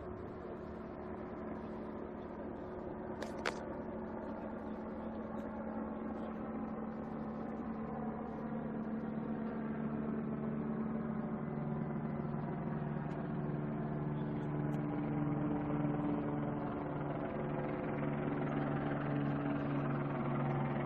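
A motor engine running at a steady idle-like speed, growing gradually louder, with a single sharp click about three and a half seconds in.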